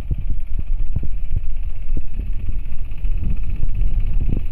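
Small diesel mini-tractor's engine running steadily as it pulls an inter-cultivation hoe through the crop, with irregular low thumps over the rumble.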